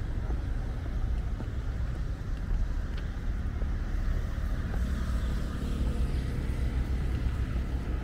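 Outdoor seaside-promenade ambience: a steady low rumble with no distinct events standing out.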